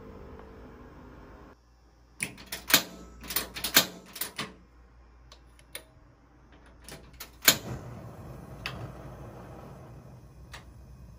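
Gas stove burner's igniter clicking rapidly about ten times without lighting, because the gas valve is still shut. After a few more clicks the burner catches on a loud click about seven and a half seconds in, and the flame then burns with a steady hiss.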